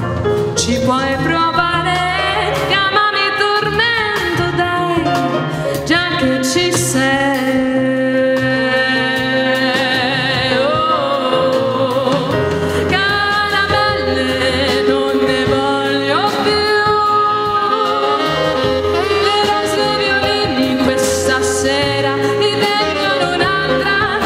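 A woman singing a song into a microphone, her long notes wavering with vibrato, accompanied by a Nord Stage 3 keyboard.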